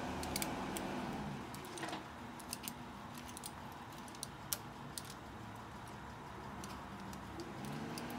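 Scattered light clicks and taps of hands working on mountain-bike handlebar parts (brake lever, grip and cables) over a steady background hum. The clicks are thickest a couple of seconds in, and the hum dips in the middle and comes back near the end.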